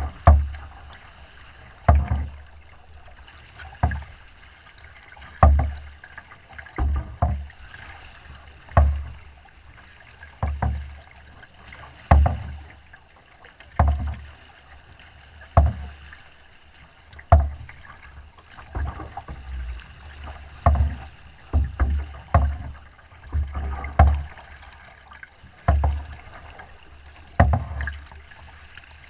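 Wind-driven chop slapping against a small boat's hull: a low splashing thump about every second and a half to two seconds, with water washing between.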